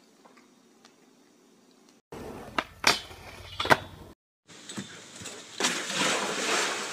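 Near silence with a few faint clicks, then skateboard wheels rolling on asphalt with three sharp clacks of the board. Then a steady rushing splash of pool water as a surfboard skims across a swimming pool.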